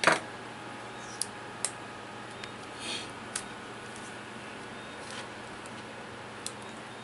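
A few light clicks and a brief rustle as a laptop LCD panel and its display cable are handled and disconnected, with a sharper click just at the start, over a steady low hum.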